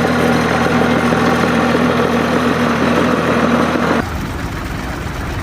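Volvo BM tractor diesel engine running at a steady speed. About four seconds in the sound cuts abruptly to a quieter, rougher low rumble.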